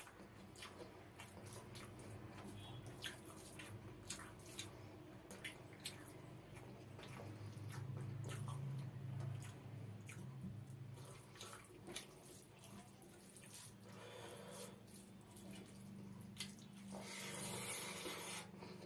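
Wet squishing and smacking of a hand mixing and squeezing rice with mustard gravy on a plate, and of chewing, with many small wet clicks. A louder squelching stretch comes near the end, under a low steady hum.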